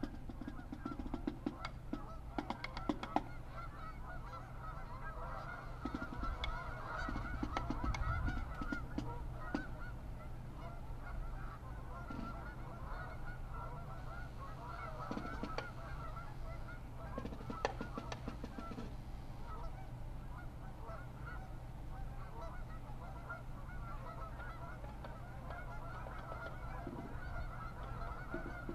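A flock of geese honking continuously as they fly off, many calls overlapping. A few short bursts of sharp taps, distant snare drum strokes, come through now and then.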